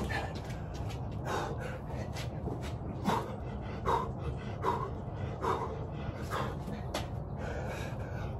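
A man breathing hard in short, forceful exhalations, about one a second, while doing burpees with push-ups. Light knocks and scuffs come from hands and feet on the floor.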